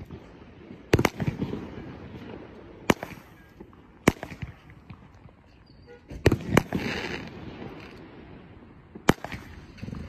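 Weco consumer fireworks cake firing shot after shot: single sharp reports one to three seconds apart, with a quick pair about six seconds in followed by a brief hissing crackle.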